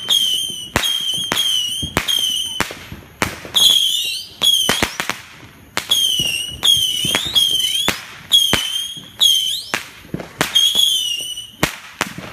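Saturn missile fireworks battery firing in rapid succession, about two shots a second. Each small rocket gives a short whistle that dips in pitch, mixed with sharp cracking pops.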